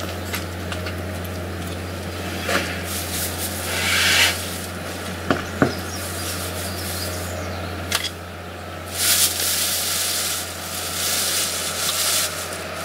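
A steady low machine hum, with scattered sharp clicks and short bursts of hiss about four seconds in and again after nine seconds.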